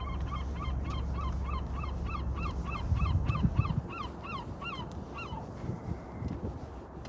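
A bird calling a long run of short, evenly spaced notes, about three a second, that stops about five seconds in. A low rumble runs underneath, loudest about three seconds in.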